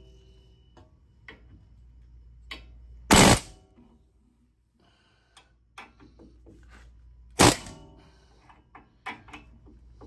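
Harbor Freight air hammer with a long chisel bit firing two short bursts against a seized old wheel bearing on a steel spindle, the first about three seconds in and lasting about a third of a second, the second a shorter one later. Light metal clicks and clinks between the bursts as the bit is set back against the bearing.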